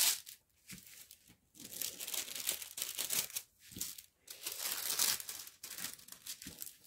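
Clear plastic protective film on a diamond painting canvas crinkling and rustling as it is laid back and smoothed down by hand onto the sticky canvas, in irregular bursts.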